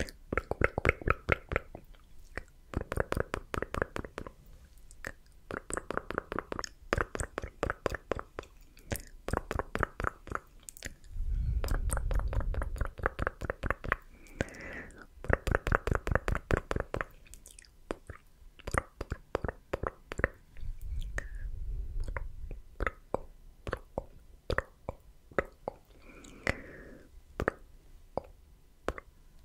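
Close-miked ASMR mouth sounds: runs of wet tongue clicks and lip smacks ("tk tk", "sk"), several clicks a second, with short pauses between the runs. A low rumble comes in twice, about eleven seconds in and again about twenty-one seconds in.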